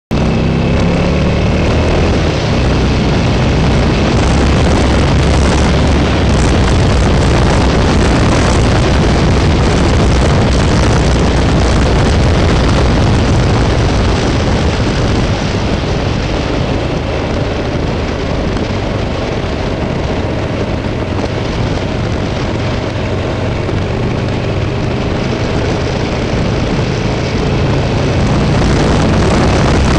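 Buell XB12Scg's air-cooled V-twin running on the move, heard under heavy wind rush on a helmet-mounted microphone. The engine pitch rises as it accelerates in the first couple of seconds and again near the end.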